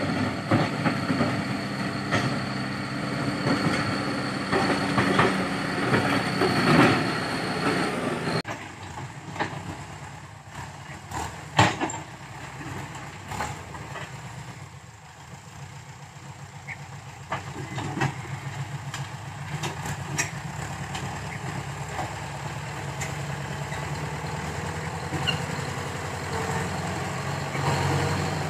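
Landini farm tractor's diesel engine running as it pushes and grades soil with its front loader bucket; it is louder for the first eight seconds, drops suddenly, runs fainter in the middle and grows louder again near the end as the tractor comes closer. A single sharp knock sounds about twelve seconds in.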